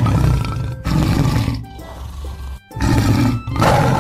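Tiger roar sound effect from an animated tiger, four roars in a row, over background music.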